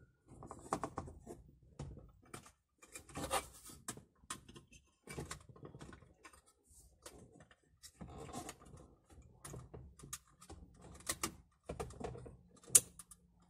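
Plastic power-window switch and door-trim parts being handled and pushed into place: irregular clicks, scrapes and light knocks, with one sharp click near the end.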